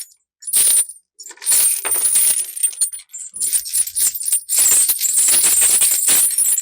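Metal chain being shaken and dropped for foley: a couple of separate clinks, then a long run of jangling, clinking links from about a second and a half in.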